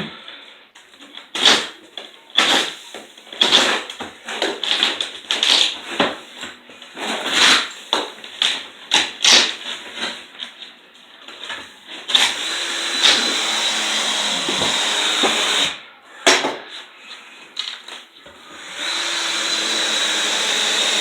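Electric power tool motor started and stopped in a quick string of short bursts, then run steadily for a few seconds at a time, twice.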